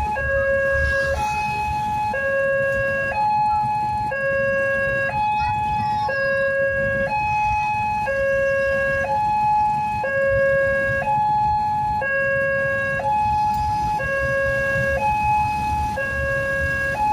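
Indonesian railway level-crossing warning siren sounding from its pole-mounted loudspeaker: a steady two-tone alternation, low and high, switching about once a second, signalling that a train is approaching and the barriers are closed. A low engine rumble from the waiting road traffic runs beneath it.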